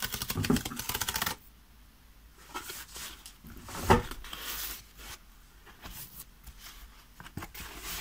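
Packing tape on a cardboard mailer box being scored with a small hand tool in a quick run of scratches, then cardboard rustling and creaking as the box flap is worked open, with one sharper knock about four seconds in.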